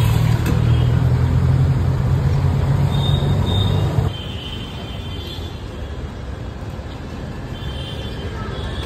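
Street noise: a strong, steady low hum for the first four seconds stops abruptly, leaving a softer, even background noise like traffic.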